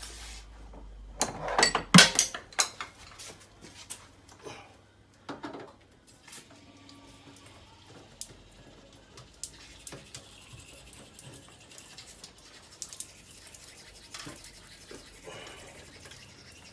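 Metal tools and boiler parts clattering and clinking as a combi boiler is worked on, loudest in a burst of knocks about two seconds in, then scattered light clicks and taps.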